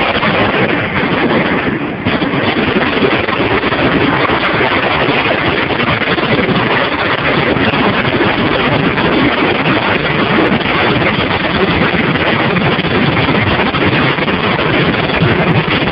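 Fireworks barrage heard from close range: rapid shells going off so densely that they merge into one continuous loud roar, with a brief dip about two seconds in.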